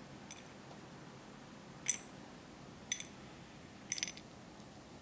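Small metal scooter carburettor parts clinking: a faint clink, then three sharp, ringing clinks about a second apart.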